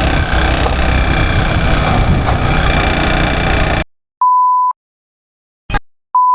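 Motorcycle running, with wind rush, cut off suddenly about four seconds in. Then two short steady beeps, about two seconds apart, with a brief click between them.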